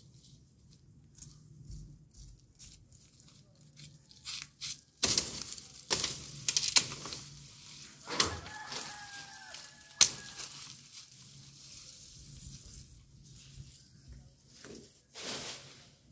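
Leafy tree branches rustling, swishing and snapping as they are pulled down and hacked off with a machete, in a string of uneven swishes and cracks. The sharpest crack comes about ten seconds in.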